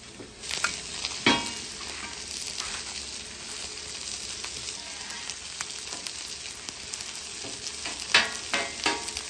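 Dried chile peppers toasting on a hot flat-top griddle with a steady light sizzle. Metal tongs scrape and click against the steel griddle as the chiles are turned, with a few sharp strikes near the end.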